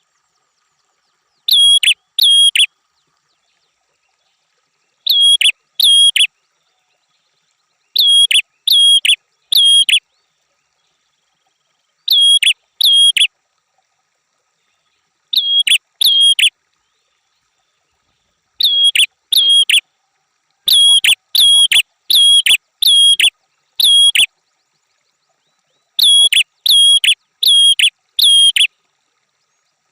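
Prenjak (prinia) song used as a masteran: short phrases of two to five sharp, high, down-slurred chip notes repeated every two to four seconds, with clean silence between phrases.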